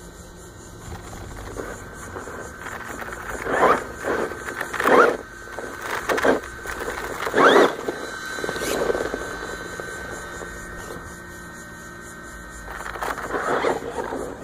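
Electric RC buggy (Axial EXO Terra) driving over dirt, its motor giving a steady whine and revving up and down several times as it climbs the mounds, loudest as it passes close by.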